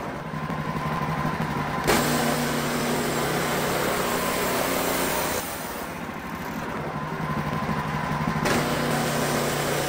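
Wood-Mizer LX portable band sawmill running, its gas engine at steady speed while the band blade saws a pine cant into 1x4 boards. The sound gets louder with a sharp click about two seconds in, drops for a few seconds past the middle, and picks up again near the end.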